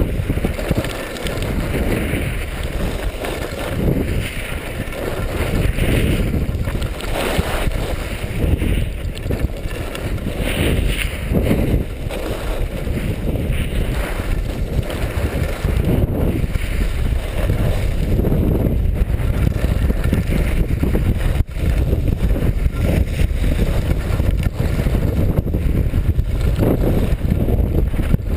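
Wind buffeting a GoPro's microphone during a downhill ski run, mixed with the hiss and scrape of skis carving on packed snow that swells with each turn.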